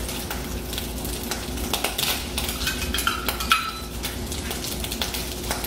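Metal butter scoop clinking and scraping against a metal container and a stainless steel pan as butter is scooped in, with a few short ringing metal tones. A faint frying hiss runs underneath.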